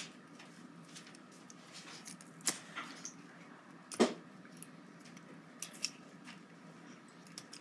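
Quiet clicks and rustles of a coiled white iPad charging cable being unwound and handled over its box, with two sharper clicks about two and a half and four seconds in.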